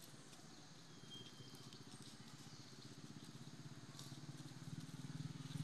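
A motor engine running with a steady, low pulsing hum that grows louder toward the end.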